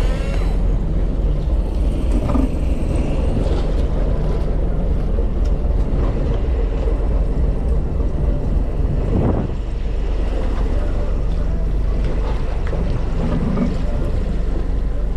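Fishing boat's engine running steadily, a constant low hum under wind and water noise.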